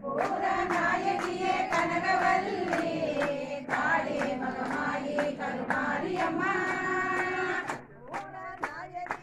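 A group of voices singing a Tamil devotional song together, with hand claps keeping time about twice a second. Near the end the singing drops away and the claps carry on.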